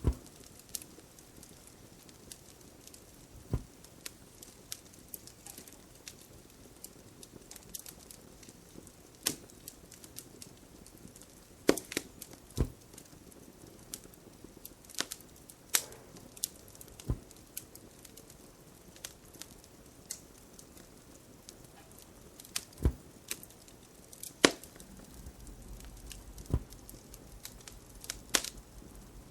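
Wood fire crackling, with irregular sharp pops and snaps over a faint steady hiss.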